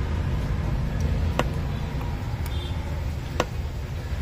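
Steady low background rumble, like distant road traffic, with a few faint light clicks, a couple of them about two seconds apart.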